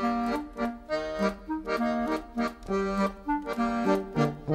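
Instrumental background music: a reedy, accordion-like melody of short, separated notes, about two or three a second.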